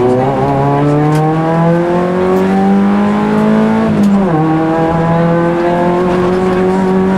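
Rally car engine heard from inside the cockpit, pulling hard under acceleration with the revs climbing steadily. About four seconds in the pitch drops suddenly at an upshift, then starts climbing again.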